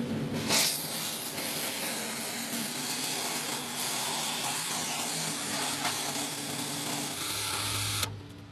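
A steady, loud hiss that starts sharply about half a second in and cuts off suddenly near the end.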